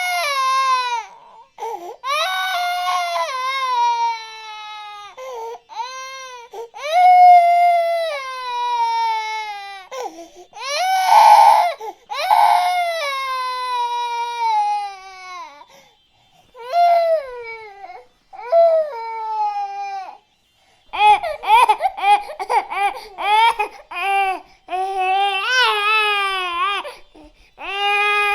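An infant crying hard: long, high-pitched wails, each falling in pitch, with short breaks for breath between them. From about 21 seconds in the cries come shorter and faster, in choppy bursts.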